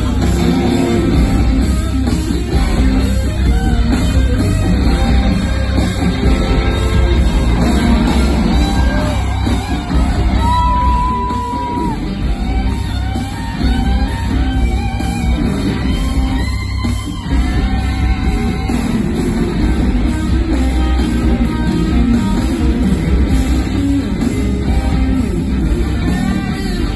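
Live rock band playing loud through an arena sound system, heard from the stands: electric guitars over a heavy, booming low end, with one long held high note about ten seconds in.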